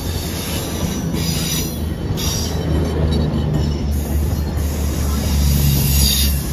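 CrossCountry Voyager diesel multiple unit moving past along the platform, its underfloor diesel engines giving a steady low hum over the noise of wheels on rail. It grows louder near the end as the rear cab end comes alongside.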